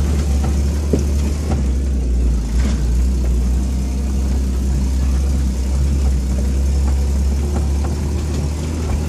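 Vehicle engine running steadily under load while climbing a rough dirt track, heard from inside the cab as a deep, continuous drone. A few light knocks come in the first few seconds.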